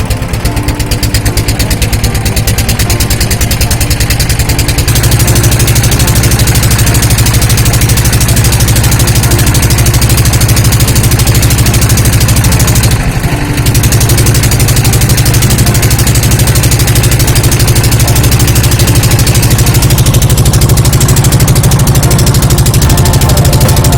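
Motor boat's engine running steadily with a fast, even chugging. It gets louder about five seconds in and dips briefly about thirteen seconds in.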